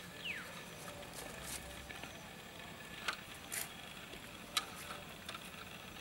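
Aluminium soda can being worked by hand: a few sharp clicks and a short scrape between about three and five seconds in.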